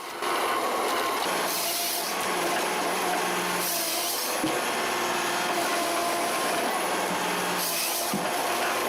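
A John Deere 1270E forestry harvester running: a steady machine hum with a few held tones over a constant hiss. Short bursts of higher hiss come about two, four and eight seconds in.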